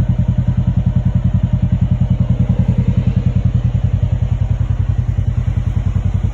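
Polaris Ranger side-by-side's engine idling, a steady, even low pulsing of about ten beats a second.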